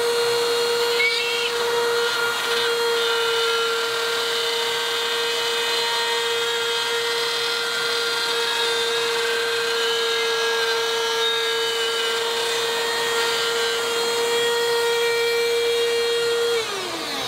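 Cordless drywall rotary cutter with a 1/8-inch bit spinning at about 30,000 rpm, a steady high whine while it cuts a circle through gypsum plasterboard. A vacuum cleaner hisses steadily alongside it, drawing the dust through a clip-on extraction adapter. Near the end the cutter switches off and its whine falls in pitch as it spins down, while the vacuum keeps running.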